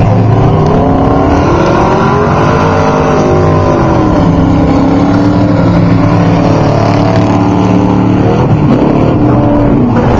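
Off-road race truck engine revving hard: its pitch climbs over the first few seconds, drops about four seconds in, holds steady, then climbs again near the end.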